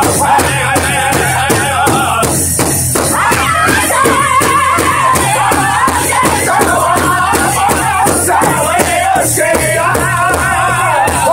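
Powwow drum group: several men singing together over a large shared bass drum that they strike in unison in a steady beat of about three strokes a second.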